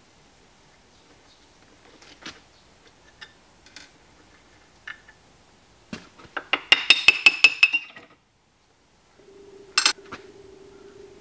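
Steel hammer rapidly tapping on the end bearing bracket of a milling machine's X-axis table to knock it loose: a quick run of about ten sharp, ringing metal strikes near the middle. A single metallic clink follows just before the end, after a few light clicks of handling earlier.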